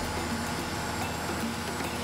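AgustaWestland AW139 helicopter running on the ground: its twin turboshaft engines and turning rotor give a steady high turbine whine over a broad rushing noise and low rumble.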